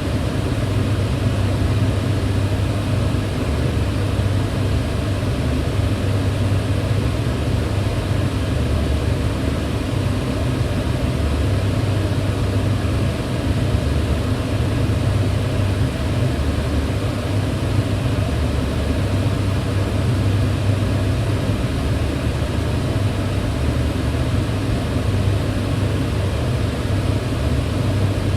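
Kitchen range hood fan running steadily: a constant low hum and whoosh of moving air.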